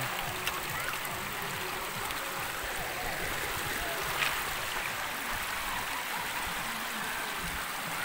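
Steady rush of falling water from a waterfall and its stream, a constant even hiss with no change in level.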